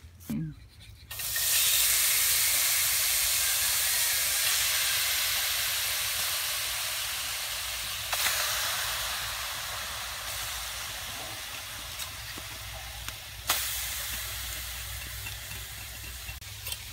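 Pieces of beef fat sizzling as they hit a hot wok to render, starting suddenly about a second in and slowly dying down, then swelling again about eight seconds in as more pieces go in. A sharp click sounds near the end.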